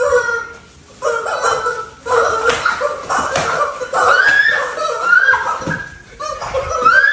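Squeals, shrieks and laughter from people dodging a blindfolded swinger, with rubber screaming-chicken toys squawking, and a few sharp slaps as the striker lands.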